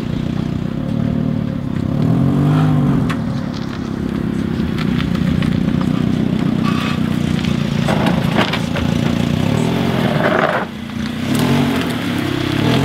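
Nissan 350Z's 3.5-litre V6 running loud through an aftermarket single-exit exhaust, revved up and back down twice: about two seconds in and again near the end.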